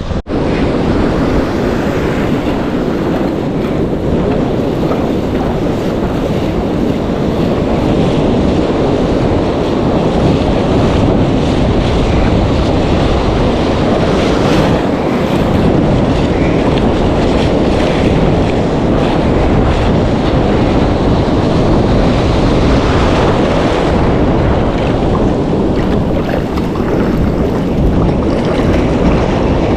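Loud, steady wind buffeting the microphone, mixed with the wash of surf breaking on the shore.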